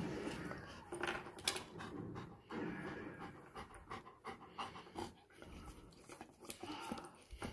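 Golden retriever panting close to the microphone, about two breaths a second.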